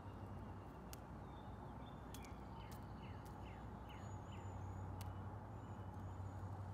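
Faint outdoor ambience: a steady low hum with a bird calling, a quick run of short descending chirps about two seconds in, then a few thin, high whistled notes.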